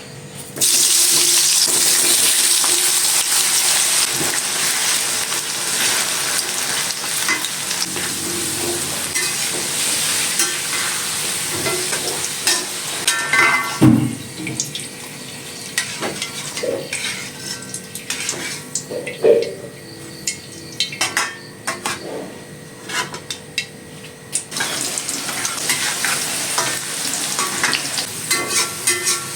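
Food sizzling in hot oil in a pan while a utensil stirs and scrapes, clicking against the pan. The sizzle starts suddenly about half a second in, dies down in the middle, where there is one heavier knock, and picks up again near the end.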